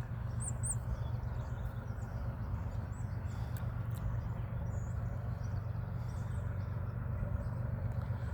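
A steady low engine rumble, with small birds chirping high and brief in the first second.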